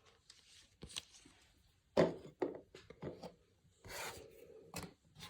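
Baseball trading cards being handled: a few short taps and brief rubbing scrapes as cards slide against each other and are set down.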